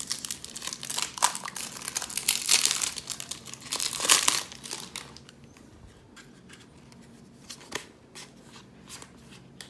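Clear plastic shrink-wrap crinkling and tearing as it is pulled off a deck of Pokémon trading cards, dense and loud for the first four or five seconds. After that it goes quieter, with a few soft ticks of the cards being handled.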